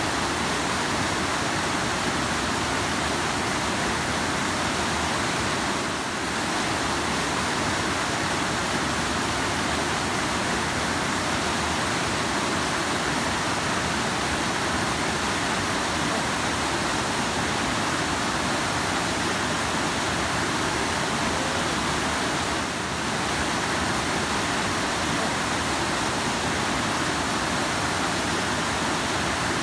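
Rushing river water: a steady, even wash of noise that dips slightly twice, briefly.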